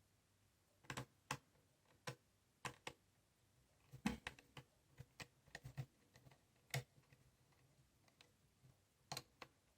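Irregular light clicks and taps from laptop parts being handled during a hand assembly, some singly and some in quick clusters.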